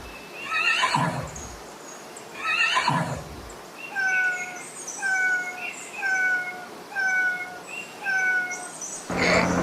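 A horse whinnying twice, each a quavering call that falls in pitch. After that comes a different, short, steady-pitched call repeated about once a second, five or six times. Near the end a louder sound with a low hum cuts in.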